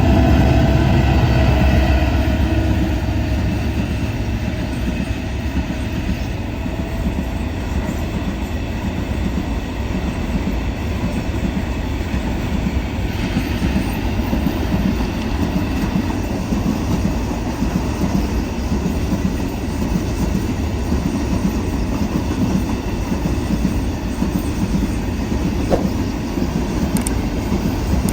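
A train rolling past close by: a steady heavy rumble, with wheels clacking over the rail joints.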